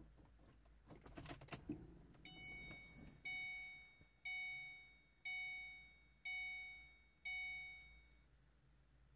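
Ford Mustang's dashboard warning chime sounding six times, about once a second, each ding fading away, as the ignition is switched on. A few clicks of the key come just before it.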